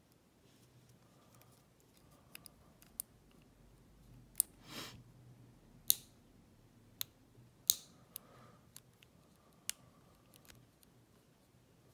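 Small sharp metal clicks and light scraping from a lock pick and tension wrench working the pins of a brass Ruko padlock, about a dozen irregular clicks with a brief rustle about five seconds in.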